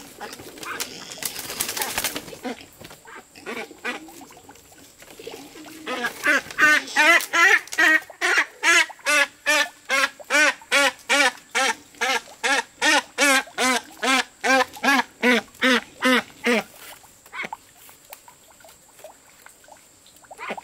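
A goose calling in a rapid train of short, harsh honks, about three a second for some ten seconds, while it is caught and held by hand. A brief rustling scuffle comes just before.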